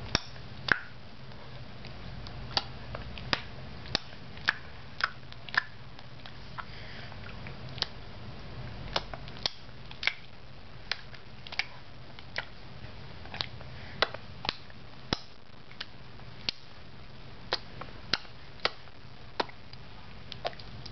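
A run of short, sharp clicks at irregular intervals, roughly one or two a second, over a steady low hum.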